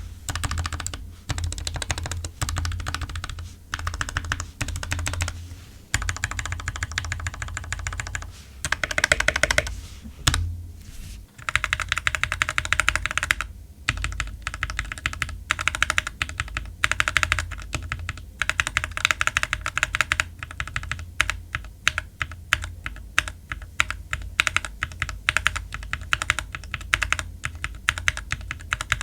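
Typing on a GK61 60% mechanical keyboard fitted with lubed Gateron Yellow linear switches and ABS keycaps: quick runs of key clacks, with short pauses between them.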